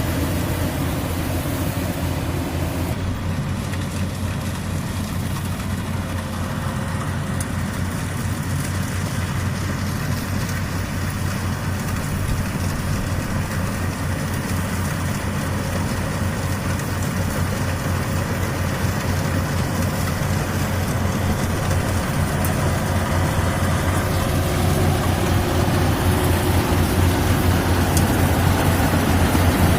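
Yanmar AW70 rice combine harvester running steadily, its diesel engine humming with the whir of the harvesting machinery; it grows slightly louder over the last few seconds.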